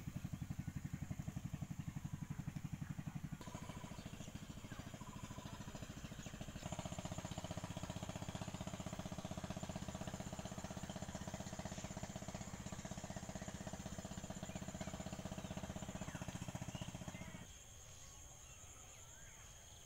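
A small engine running steadily with a fast, even beat. It gets louder a third of the way in and cuts out near the end, leaving a steady high insect trill.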